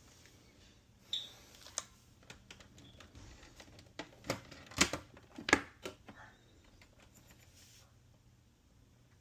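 Scattered light clicks and taps from handling small hard objects, with two sharper knocks about five seconds in.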